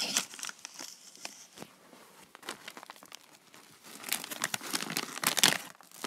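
Rold Gold pretzel snack bag crinkling as it is handled: a run of crackling rustles, loudest about four to five seconds in.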